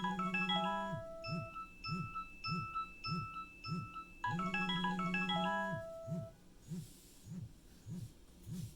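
Nokia 6030 mobile phone playing a polyphonic ringtone through its small loudspeaker: a quick run of bright electronic notes, then a short note repeating about twice a second. The run comes round again about four seconds in. A low buzz pulses beneath the tune and keeps pulsing for a couple of seconds after the melody stops.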